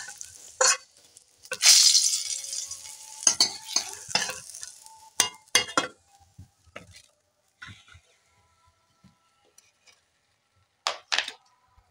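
Metal spatula scraping and clinking in a kadai holding a little hot oil, with a brief sizzle about two seconds in. After a quiet stretch, two sharp clinks near the end.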